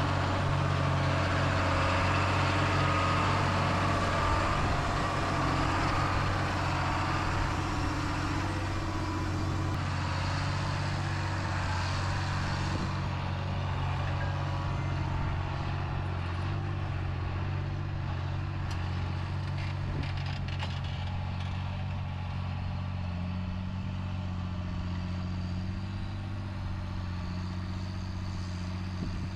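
Tractor engine running steadily. About halfway through, the higher hiss falls away while the low engine hum carries on.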